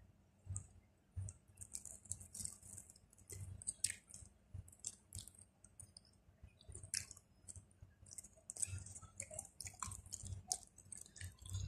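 Close-up chewing of chicken nuggets: irregular wet mouth clicks and soft low thumps of the jaw, fairly faint.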